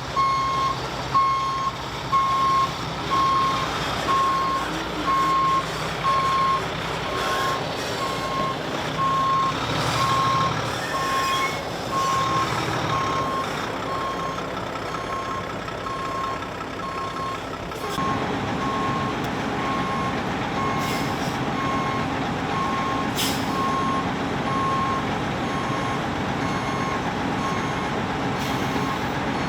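Grain truck's backup alarm beeping steadily, about two beeps a second, over the truck's running diesel engine. About 18 seconds in, a louder steady machine noise joins the beeping and carries on.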